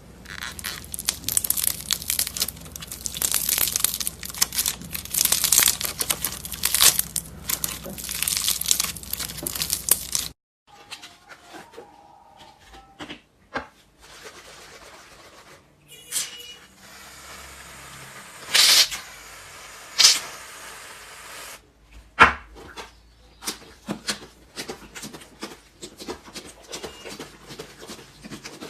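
Crunchy slime being squeezed and kneaded by hand: dense crackling and crunching, then after an abrupt change about ten seconds in, sparser pops and squishes with a few louder snaps.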